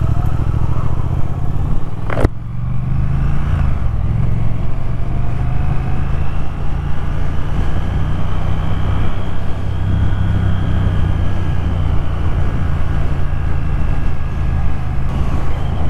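Triumph Thruxton R's 1200 cc parallel-twin engine riding on the open road. The engine note rises as the bike accelerates over the first few seconds, then runs steadily. A single sharp click comes about two seconds in.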